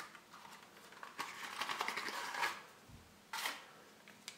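Rustling and scraping of a small cardboard box being opened and a circuit board in a foil anti-static bag drawn out. The rustle runs from about one second in to two and a half seconds, and a short crinkle of the bag comes at about three and a half seconds.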